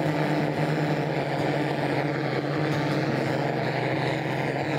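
Handheld gas torch burning steadily, its flame blasting into fuel pellets in a small stove's firebox to light them.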